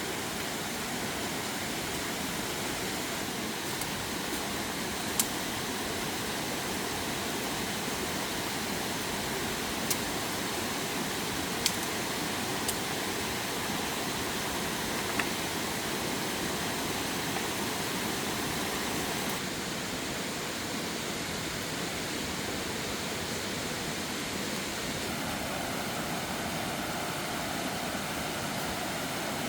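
Steady rush of flowing water, with a few brief sharp clicks now and then.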